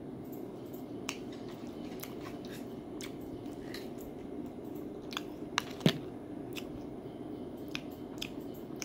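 A man chewing a dried, five-spice flavoured Chinese meat snack, with scattered short mouth clicks and a few sharper ones a little past halfway, over a steady low hum.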